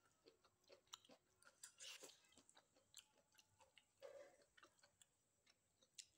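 Faint, scattered clicks and crackles of eating by hand: fingers working rice and dried fish on a steel plate, with soft chewing.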